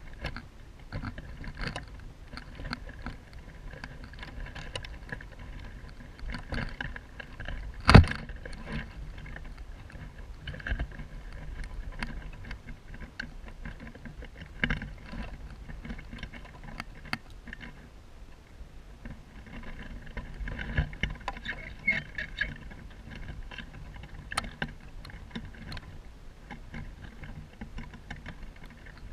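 Gila monster feeding on quail eggs in a dry-grass nest: scattered small clicks, crunches and rustles of grass and shell, with one sharp knock about eight seconds in.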